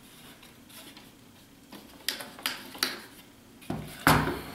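Clicks and knocks of a 3D-printed plastic 4x5 field camera's frame and fittings as it is handled and its standards are worked while unfolding it. Three sharp clicks come about two to three seconds in, then a louder knock near the end.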